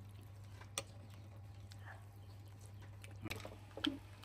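Quiet eating sounds: a few soft clicks and mouth noises as food is chewed, one a little under a second in and two more near the end, over a steady low hum.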